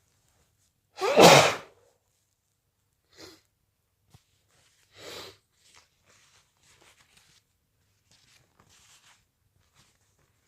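A person with a cold sneezing once, loudly, about a second in, then a few much quieter short breaths.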